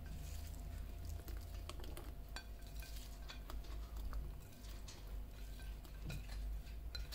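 Scattered light clicks and clinks of kitchen utensils and dishes being handled while ingredients are added to a bowl.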